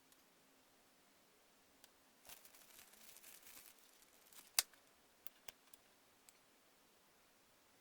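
Mostly near silence, with faint handling noises: a brief rustling scrape about two seconds in, then one sharp click and a few lighter clicks.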